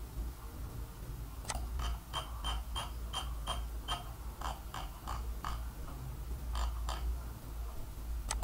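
Light clicks from a computer mouse, starting about a second and a half in, with a quick even run of about three a second, then scattered clicks and one more near the end, over a faint steady low hum.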